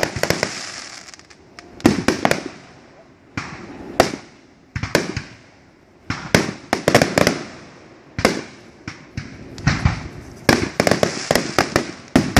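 Aerial fireworks bursting overhead in quick succession: a run of sharp bangs, each trailing off briefly, with a short lull about halfway through before the bangs come thick again.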